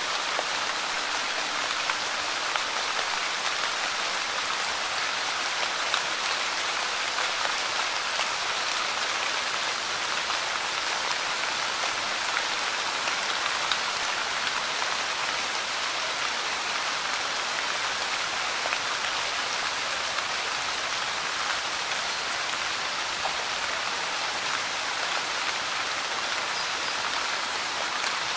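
Light rain falling steadily on a large Monstera leaf: an even wash of small drops with a few louder ticks scattered through.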